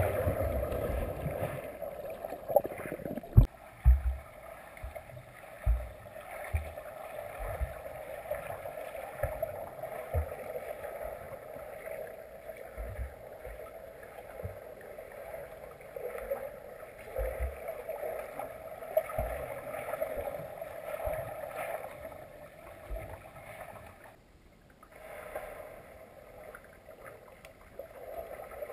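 Muffled underwater sound of a swimming pool: a steady dull hum of moving water with irregular low thumps from swimmers' strokes and kicks, heaviest in the first few seconds as a swimmer turns close by.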